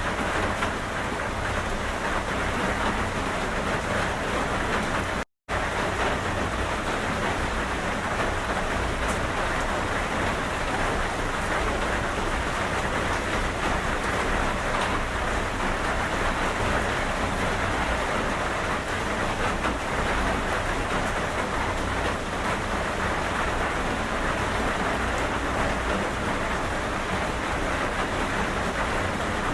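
Steady heavy rain falling, an even hiss with a low rumble beneath it. The sound cuts out completely for a split second about five seconds in, then resumes unchanged.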